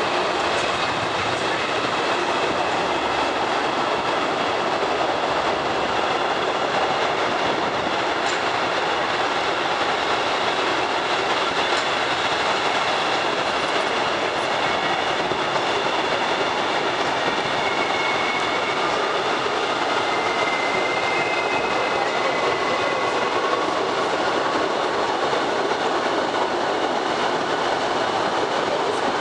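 Postojna Cave's narrow-gauge electric tourist train running along its track, a steady rattle and rumble of wheels and cars. A faint high wheel squeal comes in past the middle.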